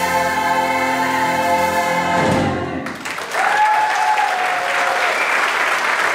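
Gospel choir with band holding its final chord, which dies away a little over two seconds in; then applause breaks out, with one held cheer over it for a second or so.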